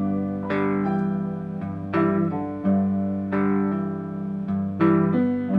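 Slow guitar music: plucked notes and chords struck about every second or so and left to ring.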